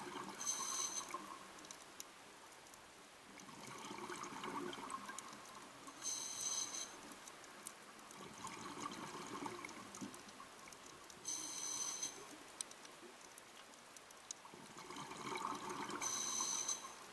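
A scuba diver breathing through a regulator underwater. There is a short hissing inhale with a thin whistle about every five seconds, and between inhales a longer rush of bubbling exhaled air.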